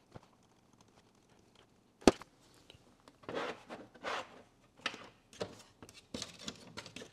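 A sharp knock about two seconds in, then a string of rubbing and sliding sounds as a sheet of rubbery anti-static mat is pressed into a toolbox drawer and steel taper tools are shifted on it.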